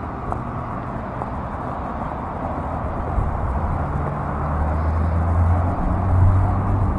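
Street traffic: a car engine hums low and grows louder in the second half as a vehicle pulls through the intersection, over a steady rush of wind and road noise.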